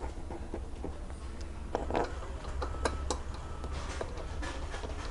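Scattered small clicks and taps of hard plastic as hands work the mobility scooter's rear shroud and its screw-in knobs, with a cluster of clicks about two seconds in.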